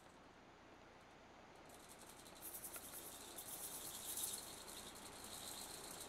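Faint insects trilling: a high, rapid pulsing chirr that grows louder from about two seconds in.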